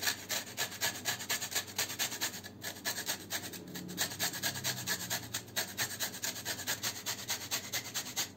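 Lemon rind being grated on a flat hand-held metal grater: quick, rhythmic rasping strokes, about four a second, which stop near the end.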